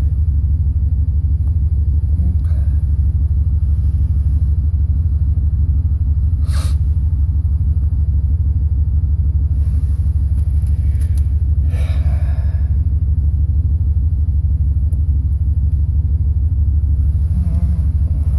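A steady low rumble throughout. Over it come a few light clicks and scrapes of small metal parts and tools, as new pins are loaded into a Yale lock cylinder during rekeying.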